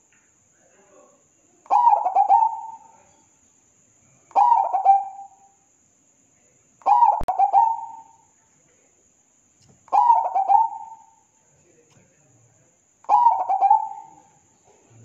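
Zebra dove (perkutut) cooing: five call phrases, one about every three seconds, each a quick stutter of short notes ending in a held coo.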